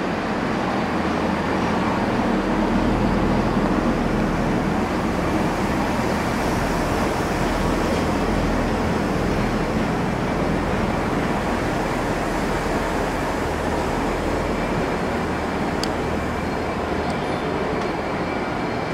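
Freight train of loaded container wagons rolling past at steady speed: a continuous rumble of wheels on rail with a low drone underneath.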